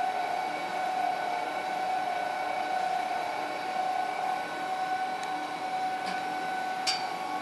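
Paul O. Abbe RB-15 ribbon blender running empty: its gear-motor drive turns the stainless double spiral ribbon agitator with a steady hum and whine. A few light clicks come near the end, the sharpest about seven seconds in.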